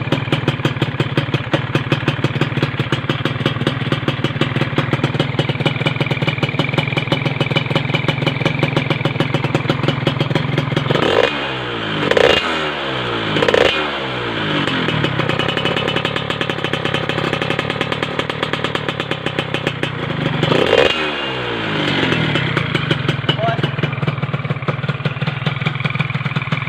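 Yamaha F1ZR's two-stroke single-cylinder engine idling through an aftermarket racing exhaust, with a rapid, even popping. It is revved in three quick blips about eleven to fourteen seconds in and once more about twenty-one seconds in, each rising and falling back to idle.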